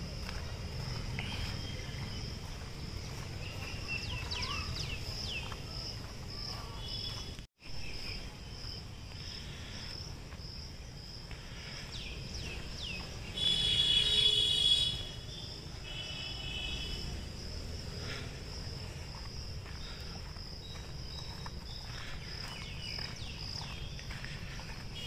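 Insects chirring in a steady, high, pulsing drone, with short falling bird-like calls here and there. A louder held call lasting about a second and a half comes about halfway through. The sound cuts out for an instant about a third of the way in.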